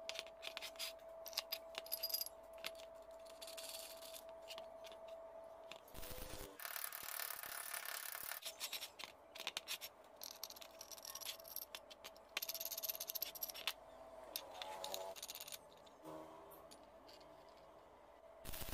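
Small steel parts being handled and set down on a wooden board: irregular light metal clinks, taps and scrapes.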